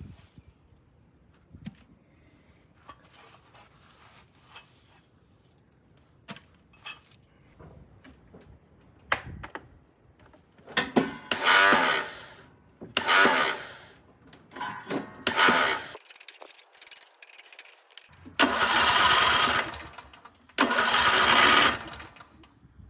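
Light clicks and taps, then a John Deere mower's electric starter cranking the engine in five separate tries of about a second each, the last two the longest. The starter trouble comes from a nest that animals built in the starter casing over the winter.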